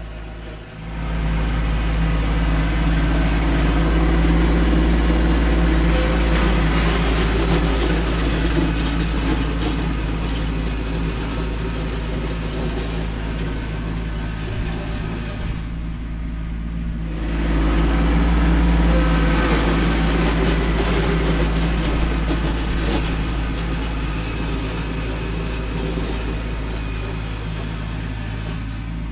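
Kubota B2601 compact tractor's three-cylinder diesel engine running steadily under load while clearing snow. It comes in about a second in, dips briefly about halfway through, then rises again.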